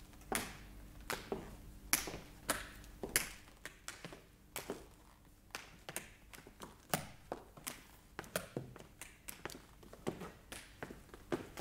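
Footsteps of two people going down cellar stairs: a run of uneven single steps at about one to two a second, with a brief lull midway. These are studio sound-effect footsteps in a radio drama.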